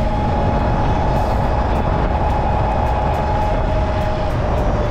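Wind rushing over the microphone of an e-bike riding at about 37 mph, with the hub motor's steady whine on top; the whine dips slightly in pitch near the end as the bike slows a little.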